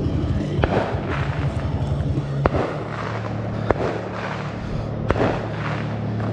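Fireworks going off at night: several separate sharp bangs, a second or more apart, over a steady low hum.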